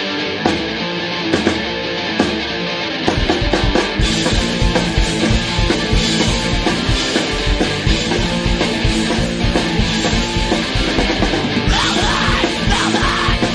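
Hardcore punk band recording. Distorted electric guitar plays alone for about the first three seconds, with a few sharp accents. Then the drums and bass come in hard and fast, and shouted vocals join near the end.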